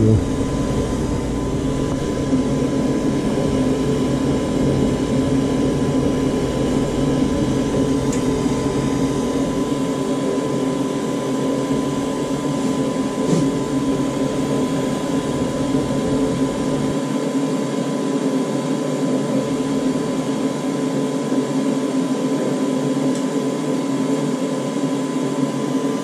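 Goodman gas furnace running: a steady motor drone with a thin, steady high whine over it.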